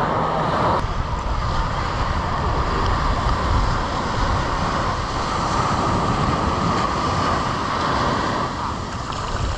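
Surf washing onto a sandy beach, with wind buffeting the microphone in a steady rumble.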